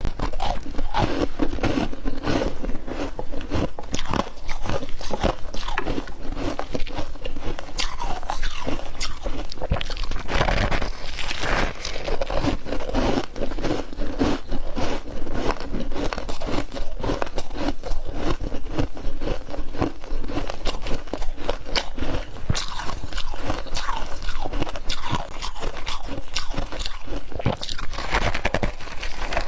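Close-up biting and chewing of fluffy freezer frost grown with a humidifier: a dense, continuous crisp crunching.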